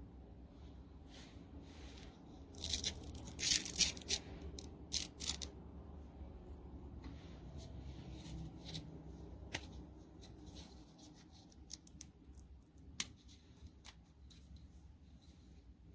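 Handling noises: a cluster of short rasping, tearing-like rustles a few seconds in, then scattered light clicks and taps.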